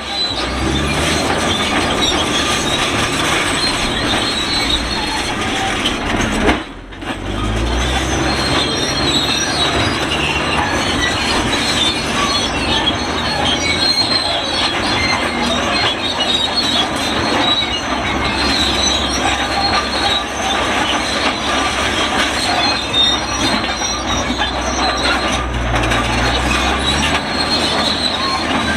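Shantui SD32 crawler bulldozer squealing and creaking loudly and without let-up as it moves, like an ungreased cart, over the steady note of its diesel engine. The sound briefly cuts out about seven seconds in.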